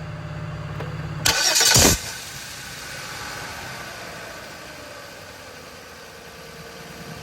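Jeep Liberty V6 being started: a short, loud, harsh grinding burst about a second in, then the engine running more quietly. The grinding comes from a faulty starter motor catching the automatic transmission's flexplate.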